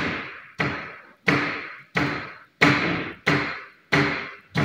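Sharp knocks repeating evenly, about one and a half a second, each ringing out briefly, in time with table tennis backhand practice strokes made on a paddle training device.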